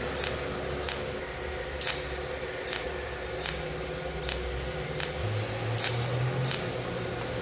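Pulsed 'cold' welding machine firing regular short pulses, each a sharp click, about one every 0.8 seconds, over a steady machine hum that deepens a little about five seconds in.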